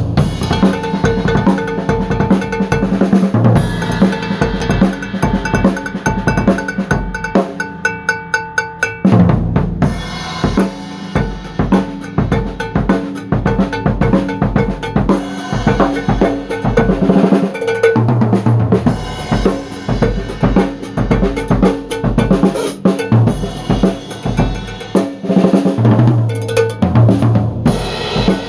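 Drum kit with a mounted cowbell played in a fast improvised groove: dense cowbell strokes over kick drum, snare and rimshots, with a quick run of rapid strokes about eight seconds in.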